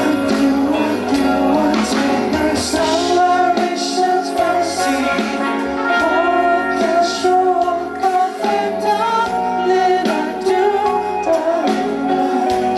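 A live pop song: a male vocalist sings a slow melody into a handheld microphone over a live band with bass guitar.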